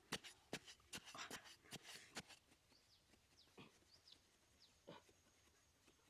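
A metal blade jabbed repeatedly into loose sandy soil, digging out a hole: a run of sharp strikes, about two or three a second, that stops about two seconds in. After that only a few faint short high chirps and a couple of soft thumps.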